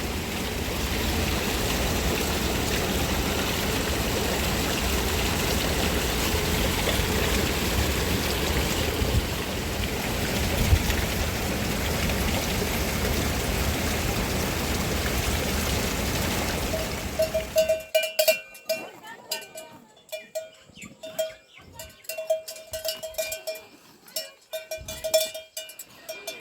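A loud, steady rushing noise that cuts off abruptly about eighteen seconds in. After it, livestock bells on grazing animals ring and clink over and over, with a few clicks.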